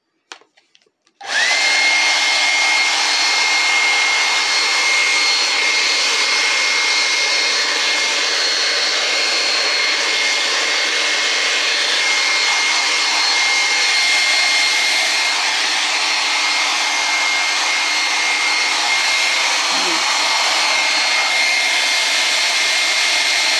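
Handheld hair dryer switched on about a second in, its motor whine rising quickly to a steady high pitch over a rush of air. It then runs at an even level while blowing hair dry.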